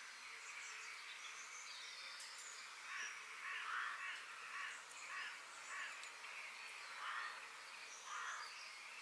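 Forest birds calling: a run of harsh, rasping calls repeated about once a second through the middle, with short, thin, high chirps from other birds over a steady background hiss.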